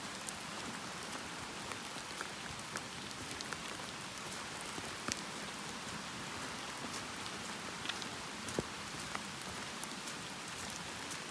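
Rain falling: a steady hiss with scattered sharp ticks of single drops.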